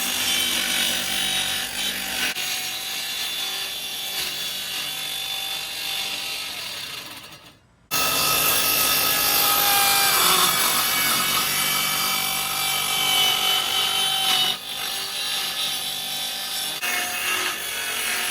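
Cordless circular saw cutting through plywood, its blade whining steadily over the rasp of the cut. It stops abruptly about seven and a half seconds in, then starts again and cuts on. The wood is pinching the blade.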